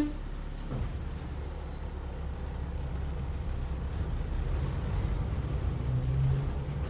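Kanbara Railway Moha 31 electric railcar heard from inside, pulling away from a station: a low running rumble of motors and wheels sets in about a second in and grows gradually louder.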